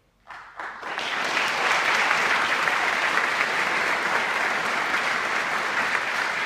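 Congregation applauding in a church, starting a moment in with a few scattered claps and swelling within a second into steady, full applause.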